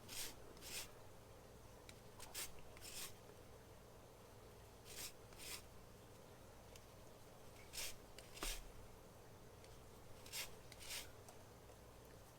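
Lemon rind being grated on a microplane zester: faint, short scraping strokes that come in pairs about every two and a half seconds.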